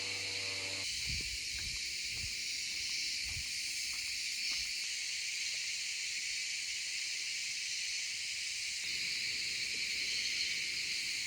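A steady high hiss, with a few soft low thuds in the first few seconds.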